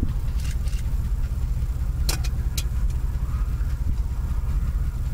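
Car engine idling heard from inside the stopped vehicle: a steady low rumble. Two sharp clicks come about two seconds in, half a second apart.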